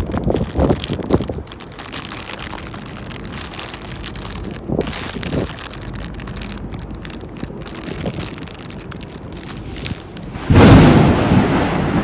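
Wind buffeting the microphone: a rumbling rush of noise, louder at the start, steadier and lower through the middle, with a sudden much louder surge about ten and a half seconds in.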